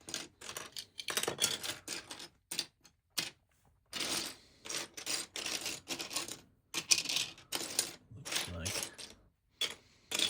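Vintage LEGO plastic pieces and minifigure parts clicking and clattering as they are handled and sifted through by hand, in quick irregular bursts.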